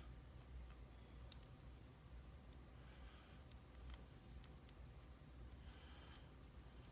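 Near silence broken by a handful of faint, sharp metallic clicks at irregular intervals, from a lock shim and euro cylinder being handled.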